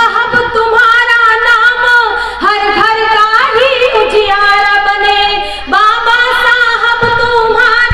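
A woman singing lines of a Hindi devotional-style poem, amplified through stage microphones, holding long drawn-out notes with slides between them and short breaths in between.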